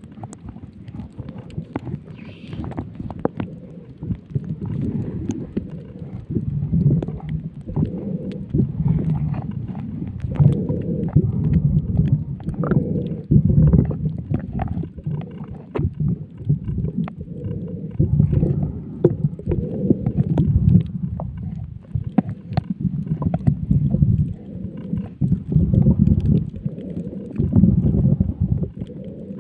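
Muffled underwater noise picked up by a camera held below the surface: low rumbling water movement that swells every few seconds, with scattered clicks and crackles.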